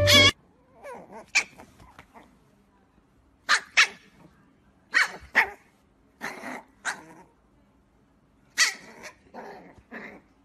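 A puppy barking in short, high yaps, grouped in small clusters spread over several seconds.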